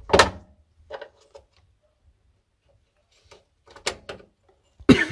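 Sharp metal clinks and knocks from a screwdriver and screws being handled against a boiler's sheet-metal plate, a scattered series of taps with the loudest just after the start and another near the end.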